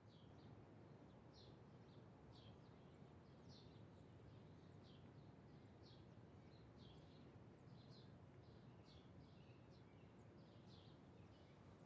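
Near-silent ambience: faint, short high bird chirps, irregular at about one or two a second, over a low background rumble.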